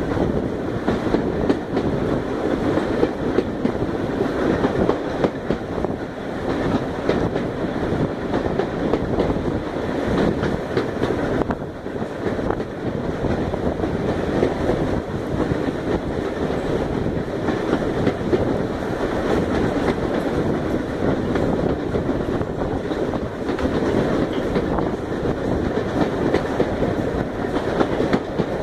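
Railway coaches running at speed along the track, heard from an open carriage window: a steady rumbling rush of wheels on rail, with frequent clicks and knocks as the wheels pass over the rail joints.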